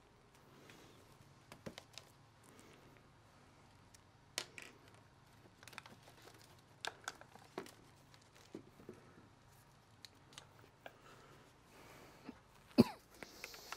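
Cardboard firework canisters being moved around and set down on a wooden desk: scattered light knocks and crinkling of their plastic wrap, with one sharp knock near the end.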